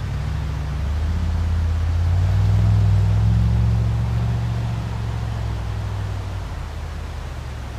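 A truck's engine running as it drives along a dirt track, its note rising about a second in, loudest around three seconds, then easing off and dropping lower near the end.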